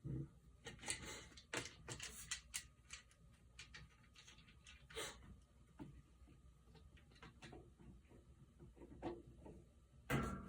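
Plastic washing machine agitator clicking and knocking irregularly against the drive shaft as it is turned and pushed to find the groove that seats it.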